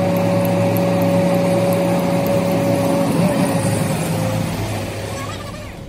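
Heavy truck's diesel engine running as the truck drives past, a steady drone with a high steady tone over it, fading over the last couple of seconds.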